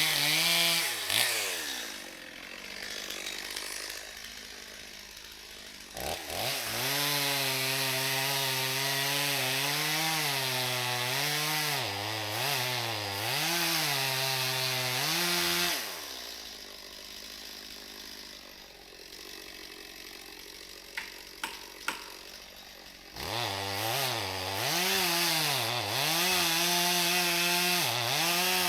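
A small petrol engine revving up and holding, with its pitch dipping and rising several times, then stopping about sixteen seconds in. It starts again and revs with the same rise and dip near the end, and a few sharp clicks fall in the quiet gap between the two runs.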